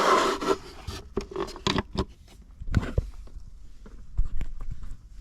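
Rubbing and scraping for about a second, then a scatter of light clicks and knocks: small parts and cables being handled.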